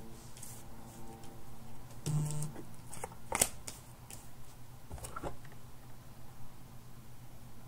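Tarot cards being handled and laid out: scattered soft taps and rustles, the sharpest about three and a half seconds in, over a steady low hum.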